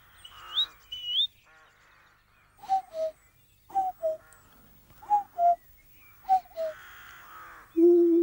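A man imitating bird calls with his mouth: two short rising whistles, then a two-note falling call repeated four times, and near the end a long, wavering hoot.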